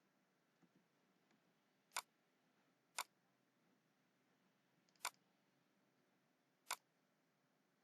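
Four single computer mouse clicks, sharp and isolated, over near silence.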